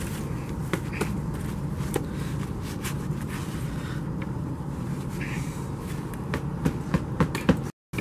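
Foundry sand crunching and scraping, with scattered small clicks, as a freshly cast aluminum hammer is dug out of its sand mold by hand. A steady low rumble runs underneath.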